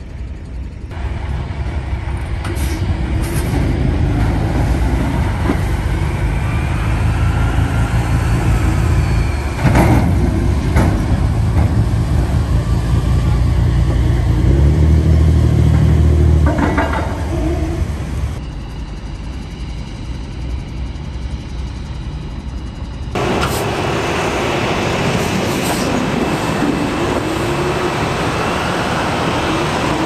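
Engines of bridge-erection boats and military vehicles running with a loud low rumble, with a few sharp metal clanks about ten and seventeen seconds in. Near the end, water rushing and splashing as a folded bridge bay opens out in the river.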